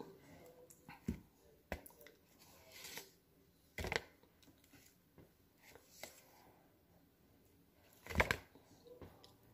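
Faint handling sounds of a banana being peeled and eaten by mouth off a paper plate: scattered short clicks, rustles of the peel and mouth noises, with the loudest rustle and knock about eight seconds in, as the peel is lifted in the teeth.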